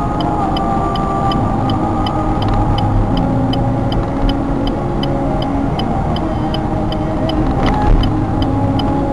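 Steady engine and tyre noise of a car driving at speed on a main road, heard from inside the cabin.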